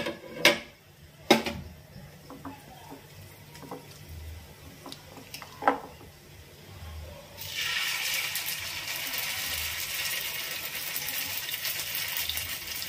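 A few light knocks, then about seven seconds in, shallow oil on a dosa tawa starts sizzling suddenly and keeps up a steady frying hiss while the prawn vadai batter is spread into it.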